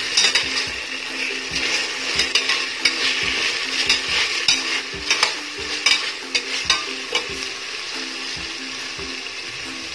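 Oil sizzling as onions, cashews, green chillies and ginger-garlic paste fry in a steel pressure cooker. A slotted spatula stirs and scrapes the pot in frequent irregular clicks.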